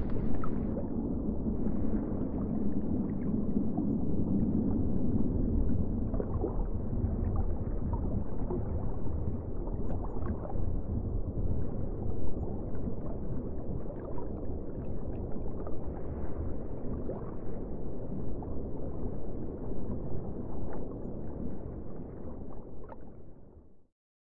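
Muffled underwater noise heard through a submerged camera: a steady low rumble with scattered faint ticks, fading and then cutting off just before the end.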